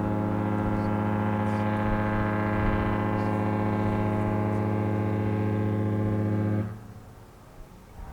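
The cruise ship Disney Treasure's horn sounding one long, steady, deep blast that stops near the end.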